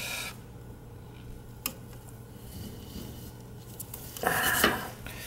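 Small handling noises from hand work on the gas valve's wire terminals: a single sharp click about a second and a half in, and a short scraping rustle near the end, over a steady low hum.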